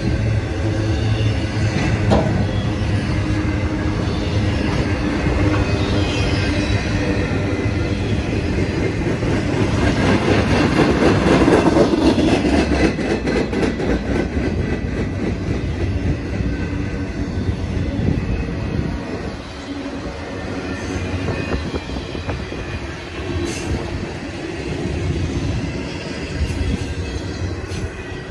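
Intermodal freight train cars loaded with trailers and containers rolling past: a steady rumble of steel wheels on rail with rapid clattering, loudest about ten to twelve seconds in, then fading near the end as the last car goes by.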